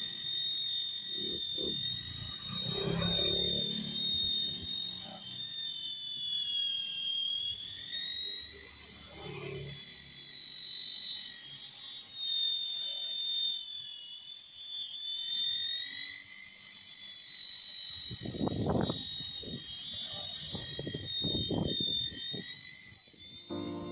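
Cordless polisher with a foam buffing pad running against car paint: a steady high motor whine that wavers slightly in pitch, with irregular low rumbles now and then. It is machine-polishing freshly wet-sanded paint to take out white rain spots.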